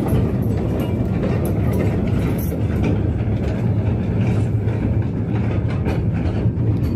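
Steady, loud low rumble of machinery in an underground coal mine, with a constant hum and scattered light clicks and knocks.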